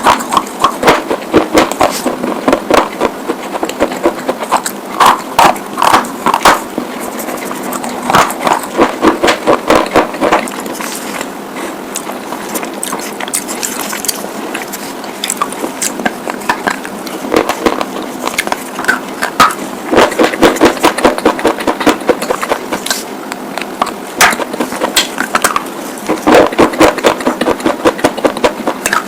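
Close-up chewing and crunching of white slate pencil and slate bar pieces: dense, sharp crackly crunches coming in bouts, louder at some moments and softer in between.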